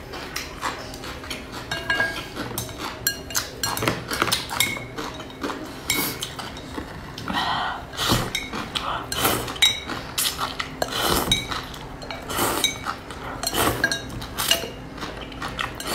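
Close-miked eating: strips of food slurped up from a bowl of chili oil in several short rushes, with chewing and chopsticks clicking against the bowl in between.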